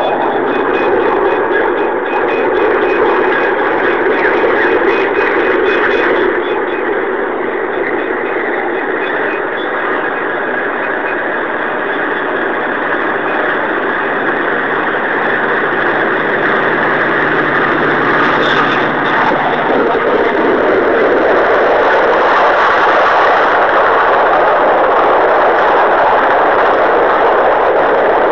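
Grain train headed by five diesel locomotives approaching and passing close, the engines working heavily. Heard through a low-quality phone microphone, so it comes across as a loud, distorted rumble that grows louder as the lead locomotives come by near the end. A level-crossing warning bell rings faintly in the first few seconds.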